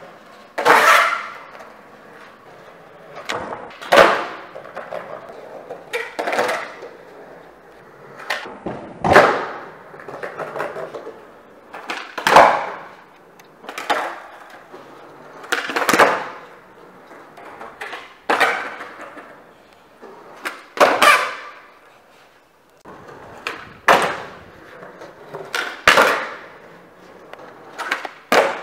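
Skateboard flatground tricks on concrete: sharp cracks of the tail popping and the deck and wheels slapping down, about every two to three seconds, with the wheels rolling between.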